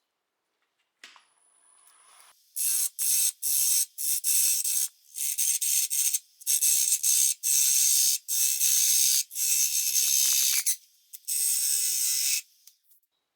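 A turning tool cutting into a spinning, very wet green maple bowl blank on a lathe: a run of hissing, rasping cuts as shavings peel off, starting about two and a half seconds in, each lasting about half a second to a second and a half with short breaks between, and stopping shortly before the end.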